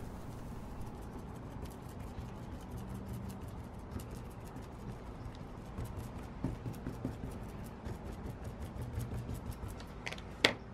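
Paintbrush bristles dabbing and stroking liquid resin into woven carbon fiber cloth: a faint, rapid scratching and ticking. Near the end comes a single sharp knock as the brush is put down.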